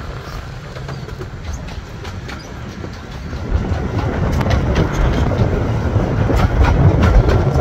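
15-inch gauge miniature railway train running on its track: a low rumble with clattering wheel clicks, growing louder about halfway through.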